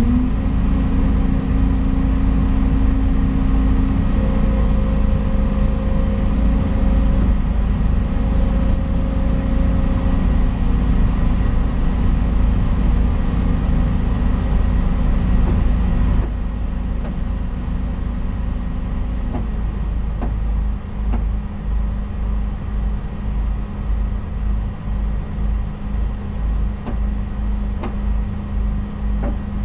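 Volvo EC220 excavator's diesel engine running steadily, heard from inside the cab while the machine holds still. About halfway through it drops to a quieter, lower running, and a few seconds later its tone settles lower still.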